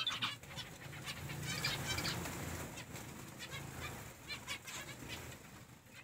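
A flock of zebra finches giving short, rapidly repeated calls in clusters, with wing flutters among them.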